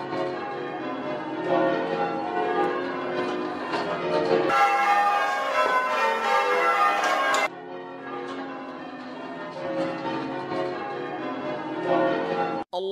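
Church tower bells rung in changes: several bells struck one after another in a continuous tumbling sequence, their tones overlapping. The sound grows brighter for a few seconds in the middle and cuts out briefly near the end.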